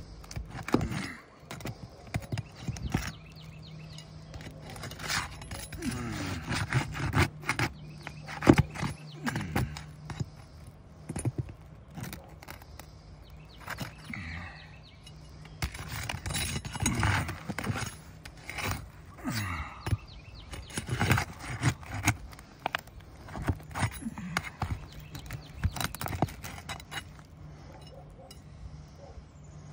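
Flat steel pry bar scraping and clicking against asphalt shingles as the tabs are worked loose and lifted, in many irregular scrapes and knocks. A steady low hum runs underneath.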